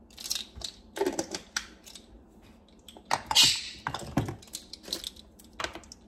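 Plastic measuring spoons and seed containers clicking and rattling in irregular handling noises, with a short louder rustle of the seed bag a little after three seconds in.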